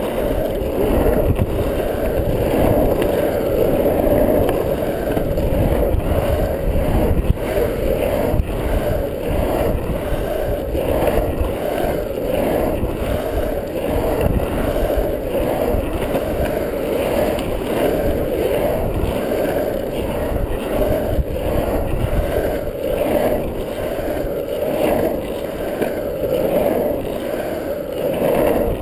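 Longboard wheels rolling on rough asphalt: a continuous rumble that swells and dips slightly as the board's speed changes.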